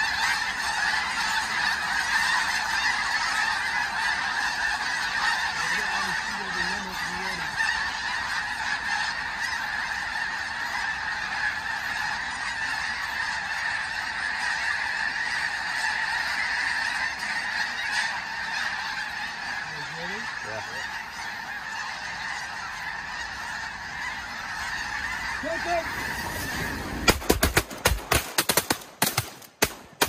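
A huge flock of snow geese calling without a break, a dense wall of honking and yelping. Near the end a rapid volley of many shotgun blasts breaks out as the hunters open fire into the flock.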